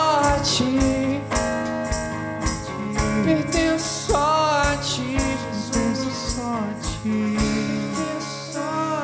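Worship song played by a band: voices singing a melody line over strummed acoustic guitar and a drum kit with regular cymbal and drum hits.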